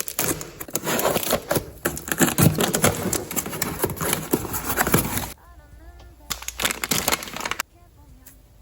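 Parcel packaging being torn open and crinkled by hand: a dense run of crackles and rustles for about five seconds, then a few sparser rustles.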